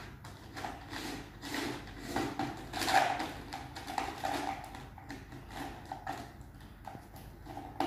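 Plastic felt-tip markers clicking and clattering against each other and the sides of a plastic jar as a hand stirs them, in an irregular run of light clicks with a louder clatter about three seconds in.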